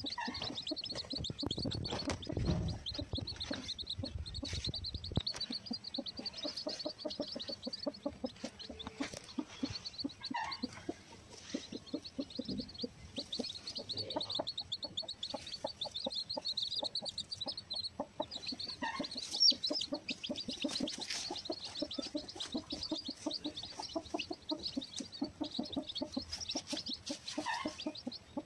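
Newly hatched chicks cheeping continuously in rapid high peeps from under a broody Aseel hen. The hen answers with a steady run of low, soft clucks.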